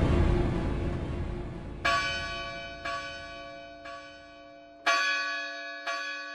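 A sustained low music chord dies away, then a church bell tolls about once a second, five strikes, each ringing on and fading before the next.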